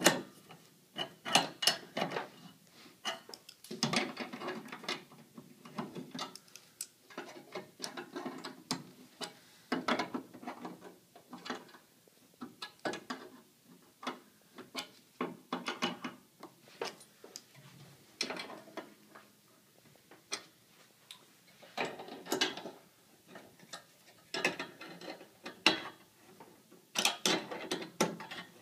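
Hand ratchet wrench clicking in short runs as the nuts on a steel antenna mounting bracket and pipe clamp are tightened, with brief pauses between runs.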